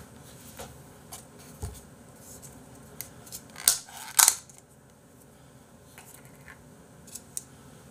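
Small sharp clicks and clacks of plastic sauce cups and chopsticks being handled at the table, the two loudest close together about four seconds in, with a soft low thump earlier.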